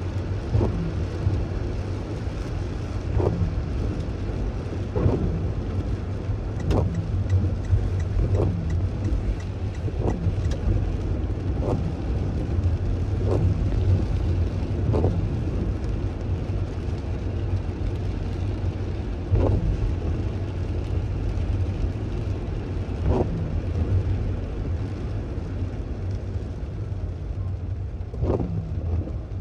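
A car driving on wet streets, heard from inside the cabin: a steady low road and engine rumble with tyre noise. Short knocks, likely the windshield wipers at each sweep, come about every one and a half to two seconds, then space out to every four or five seconds in the second half.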